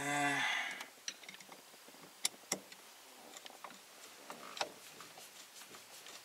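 Scattered small metallic clicks and ticks of a screwdriver and screws against the opened steering column as the turn signal switch screws are driven back in. A brief hum, like a voice, comes at the very start.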